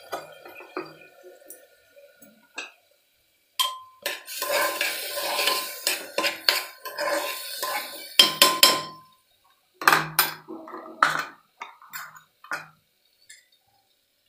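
A spoon stirring and scraping rice, lentils and vegetables in an open metal pressure cooker pot, with clinks against its sides. The stirring runs thickly from about a quarter of the way in to past the middle, then thins to a few separate clinks.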